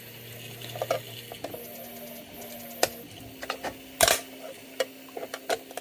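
Metal spackle blade clicking and scraping against the edge of a 3D-printed plastic part, in scattered irregular ticks with one louder click about four seconds in. A faint steady hum runs underneath.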